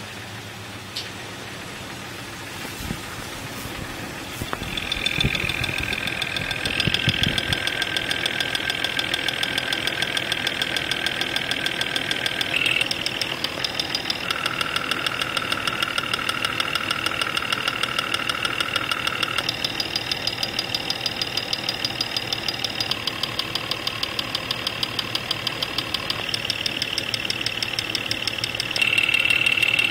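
Jeep 4.0L inline-six running, heard through a Steelman Chassis Ear electronic listening tool with clamp microphones at individual cylinders: a fast, even ticking knock whose tone changes each time the channel is switched. It gets louder a few seconds in and loudest near the end on the #5 cylinder channel, which is where the knock is loudest.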